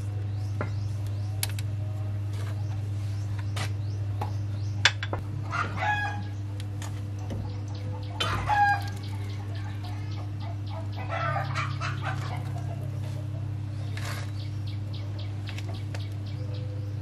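A rooster crows twice, about five and a half and eight seconds in, over a steady low machine hum. Scattered sharp metallic clicks and taps are heard throughout.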